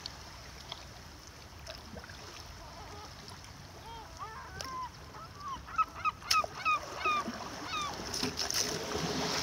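A flock of gulls calling: short, bending squawks that begin about three to four seconds in and crowd together near the middle, over a steady wash of water noise from the kayak.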